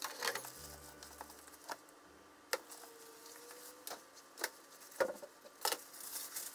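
Kitchen counter handling sounds: cling wrap rustling, then scattered clicks and knocks as dishes and utensils are moved and set down. Near the end comes the knock of a frying pan being set on the stove.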